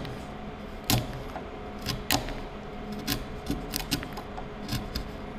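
A wood chisel pushed by hand, paring small chips out of a trench in a piece of timber: a run of sharp cracks and ticks as the chips split away, the strongest about one and two seconds in, over a faint steady hum.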